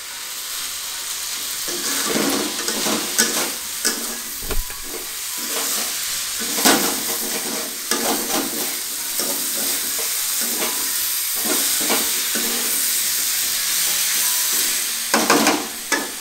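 Vegetables sizzling steadily as they fry in an aluminium kadai, with a metal spatula scraping and knocking against the pan at irregular intervals as they are stirred.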